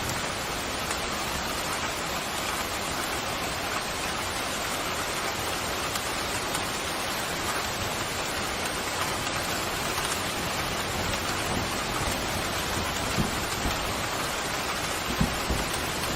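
Steady pouring rain, an even hiss with no let-up, with a few brief soft low thuds in the last few seconds.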